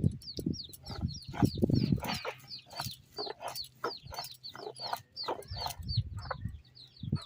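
Chickens calling: a rapid run of short, high, downward-sliding peeps several times a second, with knocks and rustling in the first two seconds.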